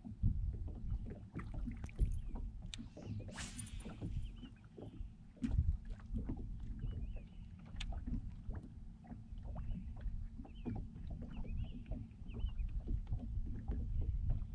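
Small waves lapping and knocking against the hull of a Ranger bass boat: a steady low rumble with frequent irregular slaps.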